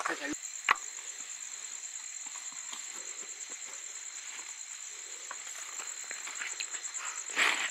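Steady, high, pulsing trill of crickets chirping at night. Over it come scattered soft rustles and clicks as the bag and snake hook are handled in the grass, with one sharp click a little under a second in and a louder rustle near the end.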